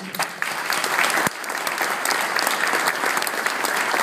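Audience applauding: dense, continuous clapping that starts at once, with a few sharp single claps close to the microphone standing out.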